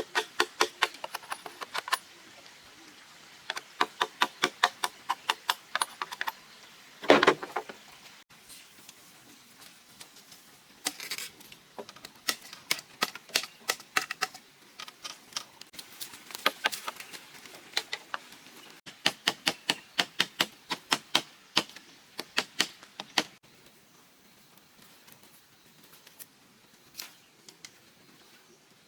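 Runs of quick, light chopping strikes of a blade on bamboo, about five a second with short pauses between the runs, and one heavier blow about seven seconds in.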